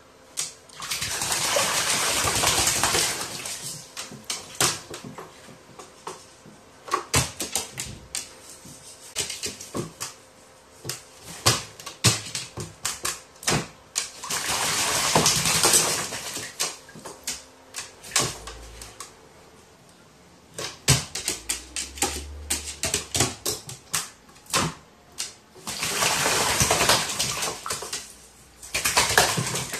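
A crow bathing in a plastic basin of water, beating its wings in the water to splash: three long bouts of splashing, about a second in, midway and near the end, with scattered short splashes and drips between.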